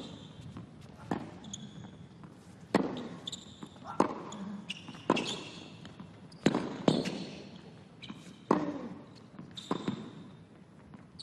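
Tennis rally on a hard court: sharp racket-on-ball strikes and ball bounces recur about every second, echoing briefly, with short high squeaks of tennis shoes on the court.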